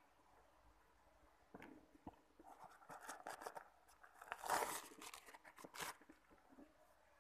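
Handling noise from a black leather slip-on dress shoe being turned and flexed in the hands over its plastic-wrapped box: soft crinkling and rustling with small clicks and knocks. It starts about a second and a half in, is loudest a little past halfway, and dies away near the end.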